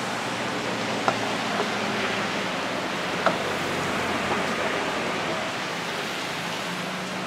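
Steady rushing noise of a busy street-food stall, broken by two sharp knocks about one and three seconds in: a cleaver striking the wooden chopping board.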